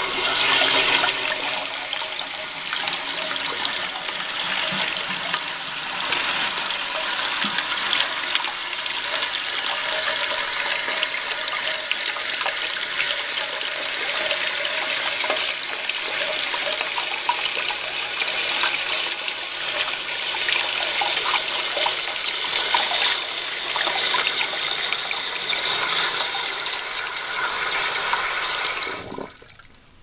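A 1999 Cisa toilet flushing and its tank refilling through an old float-ball ballcock valve: a steady rush and hiss of water that shuts off abruptly near the end as the tank fills.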